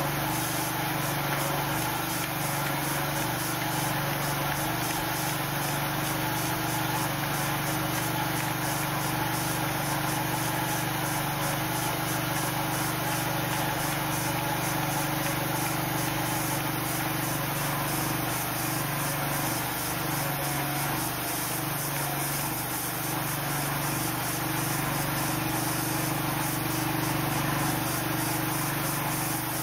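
Sawmill engine running steadily at an even pitch and level.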